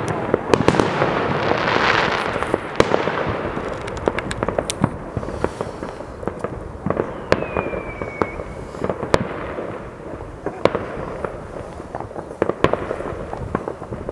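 Fireworks going off all over a town at night: a constant rumble of distant bangs with sharper single reports scattered throughout. A dense crackling burst fills the first couple of seconds, and a thin, slightly falling whistle sounds about seven seconds in.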